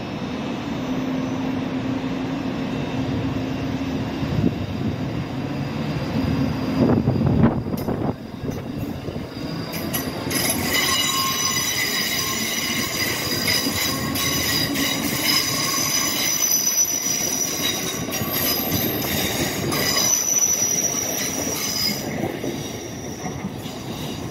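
Two coupled ScotRail Class 334 electric multiple units pulling away and running past, a steady rumble of wheels on rail. From about ten seconds in, several high steady whines join it.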